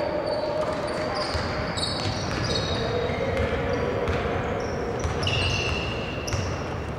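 Live basketball play on a hardwood court: the ball bouncing, sneakers squeaking in short high chirps, and players' voices, echoing in a large, mostly empty arena.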